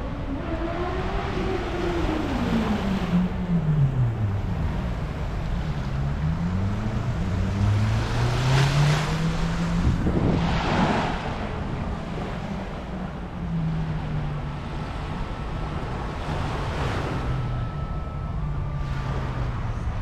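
Small waves washing on a sandy shore, with wind on the microphone and two louder surges of surf near the middle. Under it runs the low hum of an engine whose pitch rises and falls in the first half, then holds fairly steady.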